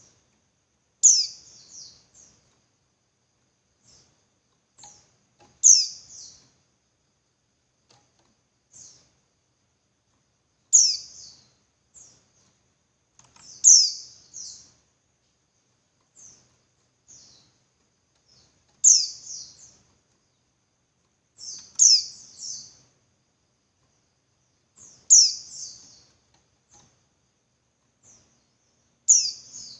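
Female white-eye (pleci) calling. Short, high, downward-sliding calls come about every three to five seconds, eight loud ones in all, with fainter chips between them. This is the kind of call used as a lure to rouse male white-eyes into singing.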